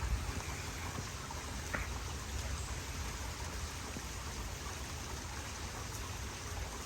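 Steady rush of heavy stormwater runoff flowing through a flooded rock-lined drainage channel, with rain falling.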